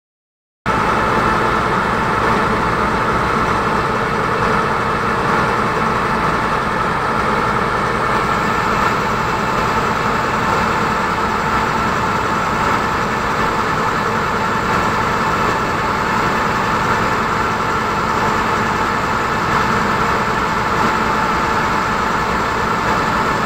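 Passenger river launch's engine running steadily, heard from on board, a loud even drone that cuts in about half a second in.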